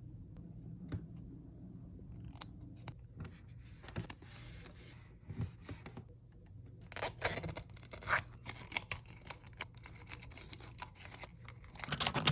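Toy packaging being handled and opened: irregular crinkling, rustling and sharp clicks, busiest in a run of clicks and crinkles past the middle.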